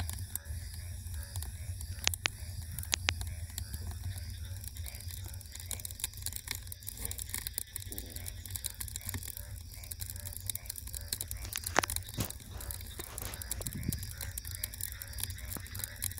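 Wood fire crackling: a dense run of small sharp pops and snaps over a steady low rumble. A few louder pops come about two and three seconds in, and the loudest about twelve seconds in.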